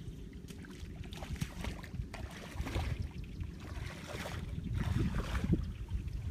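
Wind buffeting the microphone as a steady low rumble, with a few brief rustling or splashing noises a little after halfway.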